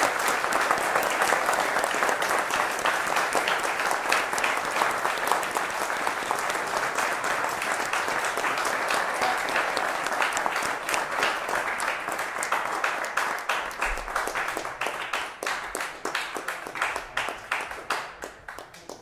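Audience applauding: dense clapping that thins out into scattered separate claps and fades away near the end.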